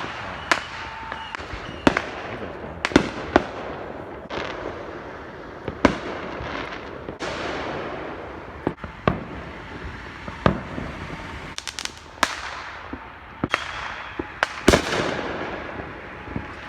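Neighbourhood fireworks going off: about fifteen sharp bangs at irregular intervals, some in quick clusters, each trailing off in echo, over a constant haze of more distant bangs and crackle.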